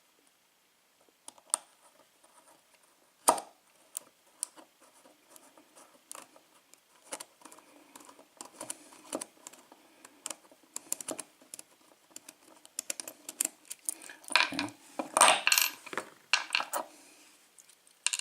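Small metal clicks, taps and scrapes of hand tools on a Brinks 6-pin padlock being taken apart, sparse at first and growing busier, with a louder bout of metal clatter about three quarters of the way through.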